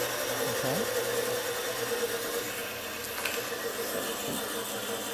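Band saw coasting down after being switched off: a steady mechanical hum that slowly fades, its tone dying away about halfway through, with a light click about three seconds in.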